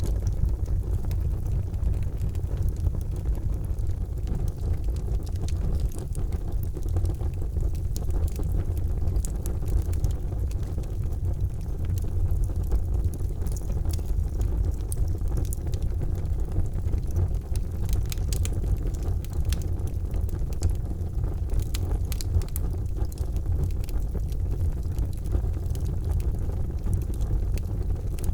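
Charcoal fire burning, with scattered sharp crackles and pops over a steady low rumble.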